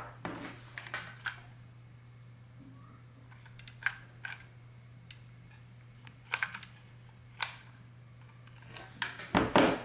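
Scattered clicks and taps from handling a glue gun loaded with sealing wax, with a louder cluster of knocks near the end.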